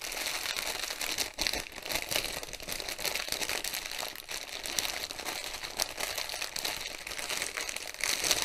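Plastic bag of bagged diamond-painting drills and number labels crinkling as it is handled and turned over, a continuous run of crackling with a few louder flurries.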